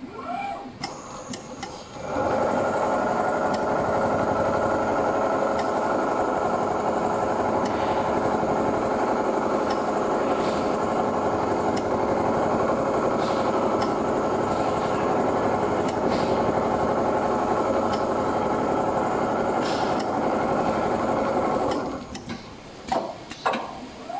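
Richpeace CNC pattern sewing machine stitching a quilted panel. Its sewing head starts running about two seconds in, keeps going steadily, and stops about two seconds before the end, with a few short clicks after it stops.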